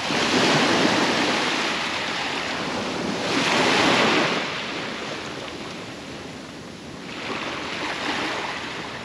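Sea waves breaking on a sandy beach: three surges of surf a few seconds apart, each swelling and then fading.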